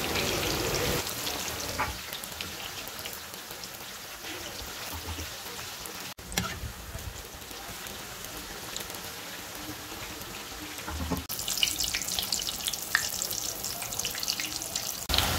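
Eggplant slices deep-frying in hot oil: a steady sizzle with fine crackling, breaking off briefly about six seconds in and growing louder and busier near the end.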